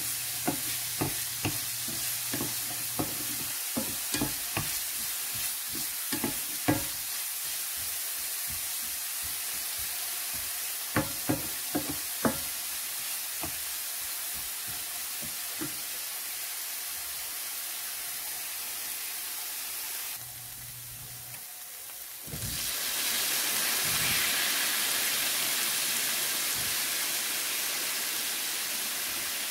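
Chopped onion and garlic sizzling in hot oil in a nonstick frying pan, with a wooden spatula stirring and knocking against the pan many times in the first half. After a short drop about 20 seconds in, the sizzle comes back louder and steady.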